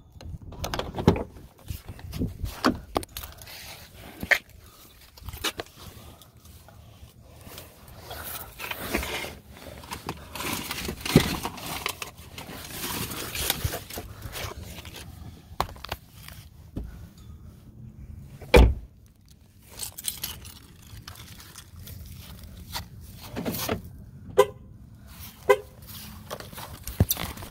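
Handling noise from a phone microphone being carried and rubbed against clothing: rustling with many irregular clicks and knocks, and one heavy, deep thud about two-thirds of the way through.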